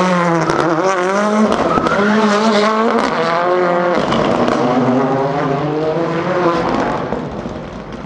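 Ford Fiesta rally car's engine revving hard past, its pitch climbing and dropping several times as it shifts gear, with tyre noise underneath. The engine grows fainter near the end as the car moves away.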